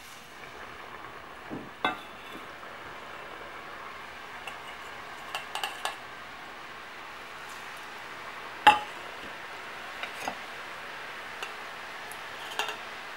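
Rice-flour murukku deep-frying in hot oil in a wide flat pan, a steady sizzle that grows a little as more murukku go in. Metal utensils clink sharply against the pan a few times, loudest about nine seconds in.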